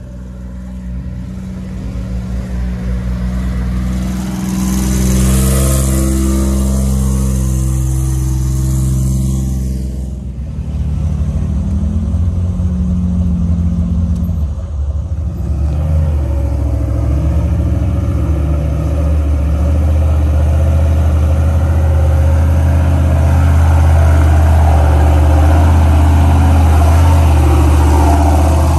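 Off-road Jeep engine running and revving, its pitch rising and falling as the throttle changes, with a high hissing noise from about four to ten seconds in. In the second half the engine runs louder and steadier.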